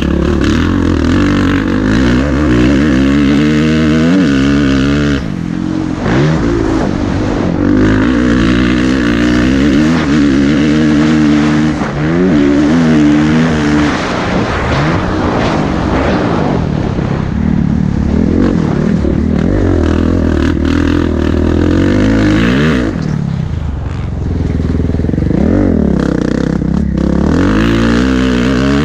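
Kawasaki four-stroke motocross bike's engine under race riding, its pitch climbing hard and falling away again and again as the throttle is opened and shut through corners and jumps, with a few brief dips as power is cut. Wind rushes over the helmet-mounted microphone.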